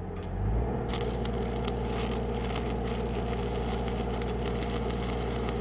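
Stick-welding arc from a 1/8-inch 6010 electrode, struck about half a second in and then crackling steadily as the rod is dragged along the joint between a 1/8-inch steel plate and thin gate tubing. A steady low machine hum runs underneath.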